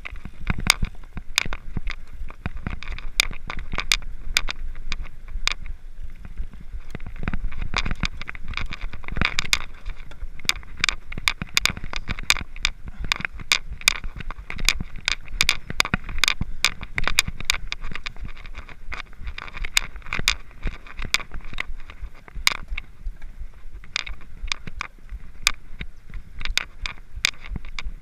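Mountain bikes riding past at a mass start: tyres crunching on gravel with many irregular clicks and rattles, over a low rumble.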